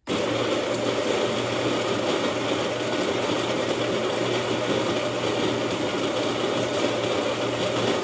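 Baratza Encore conical-burr coffee grinder switched on and running steadily: a loud, even whirring over a low hum, cut off near the end.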